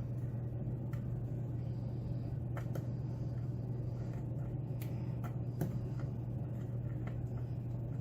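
A steel lock pick ticking and scraping faintly against the pins of a pin-tumbler lock, a few irregular light clicks as the pins are bounced during picking, over a steady low hum.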